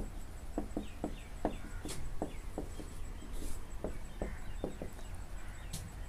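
Marker pen writing on a whiteboard: a string of short taps and strokes, about two a second, with a few faint high squeaks about a second in.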